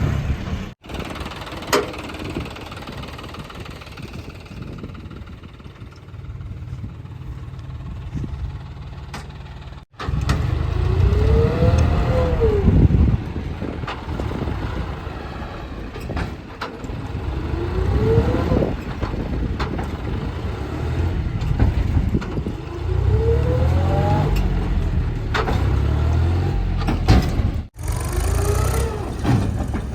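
JCB 3DX backhoe loader's diesel engine running and revving up under load four times, each time with a whine that rises and then falls as the arm works.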